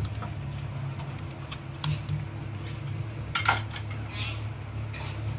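Metal utensils clinking and scraping against a stainless-steel mixing bowl as ground mutton is scraped from a container into it: a scatter of short clicks, the loudest cluster about three and a half seconds in. A steady low hum runs beneath.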